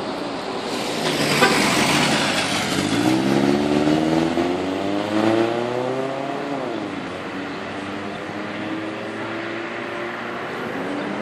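Toyota Wish with an aftermarket three-pass rear exhaust section, medium-volume version, accelerating away: the exhaust note climbs steadily in pitch, drops at a gear change about seven seconds in, then climbs again more slowly as it draws away.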